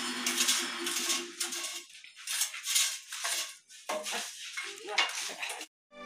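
Concrete block-making machine running: a steady motor hum under metallic rattling, which stops about two seconds in, followed by irregular clattering and knocks that cut off just before the end.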